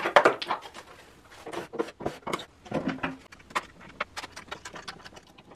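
Irregular clicks, taps and knocks of hands and tools working on a homemade jointer, undoing the fittings that hold its table.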